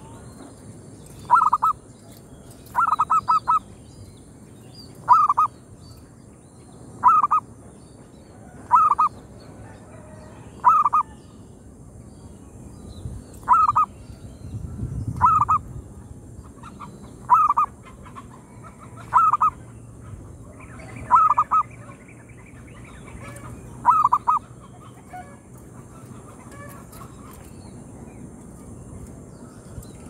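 Zebra dove (perkutut) cooing: about a dozen short runs of quick notes, one roughly every two seconds, stopping about 24 seconds in.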